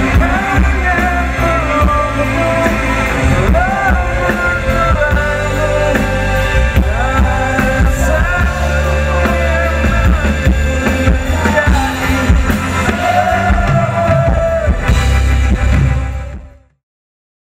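Rock song: a singer's voice over a band with drums and heavy bass. The music stops abruptly near the end.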